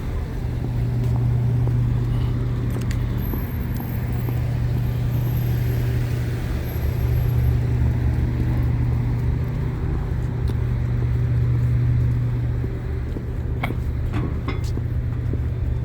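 A train's diesel engine running with a steady low drone over a rumble. A few light clicks come near the end.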